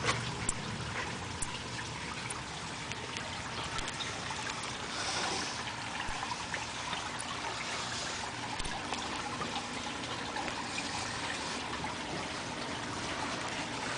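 Water trickling steadily, with small scattered clicks.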